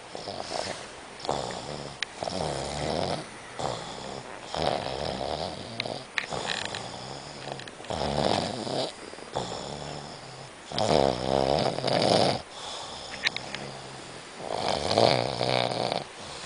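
A sleeping person snoring: a rattling snore on each breath, recurring every one to two seconds, with the loudest snores in the second half.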